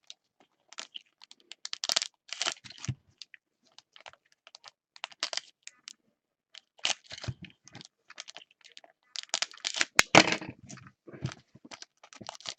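Sealed trading card packs and their wrappers being handled: irregular crinkling, rustling and tearing of foil and plastic packaging, with a couple of sharp clicks, about 2 and 10 seconds in.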